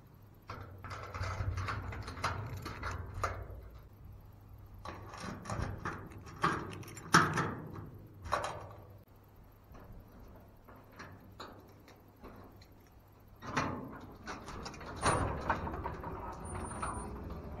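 Keys jingling, then clicking and scraping in the lock of a steel garage door, the loudest click about 7 s in. In the last few seconds the metal door is lifted open, a longer stretch of steady scraping and rattling.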